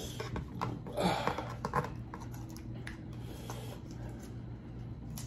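Small clicks, taps and scrapes of a metal spoon and a crisp tostada being handled, busiest in the first two seconds, with a louder cluster about a second in, over a low steady hum.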